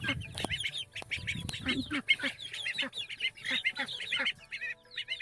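A pen of young grow-out chicks peeping, many short high calls overlapping, with a low rumble for the first couple of seconds.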